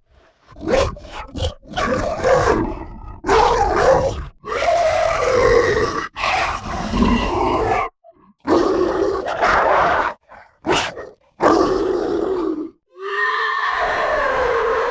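Chupacabra monster sound effect: a run of about nine growls, roars and grunts, each a second or two long with short breaks between them. A brief sharp cry comes about eleven seconds in.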